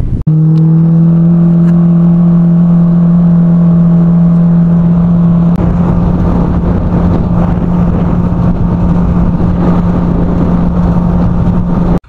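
Mercury outboard motor running steadily at cruising speed as the boat travels upriver: a loud, even drone. About halfway through the tone shifts abruptly where two shots are joined.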